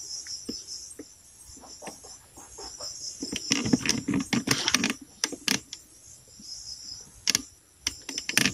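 Insects chirping steadily. Rustling and sharp clicks come from a pole pruner's pull rope and metal cutter head being handled, heaviest in the middle with a few separate clicks near the end.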